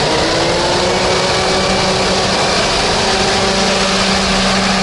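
Hovercraft's engine and rear propeller fan running close by: a steady drone over a loud rush of air.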